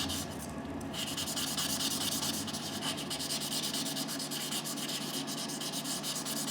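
A fire opal rubbed back and forth on fine-grit dry sandpaper: a steady, scratchy rasp of rapid strokes that picks up about a second in.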